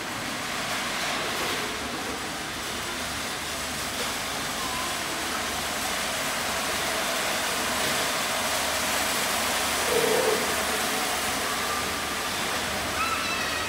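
Steady background hubbub of a busy indoor shopping mall: an even rushing hiss of ventilation and crowd noise, with a short louder blip about ten seconds in.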